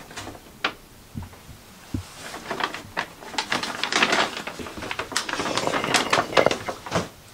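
A brown paper bag being handled and opened, with dense crinkling and rustling of the paper. It is preceded by a couple of light knocks in the first two seconds.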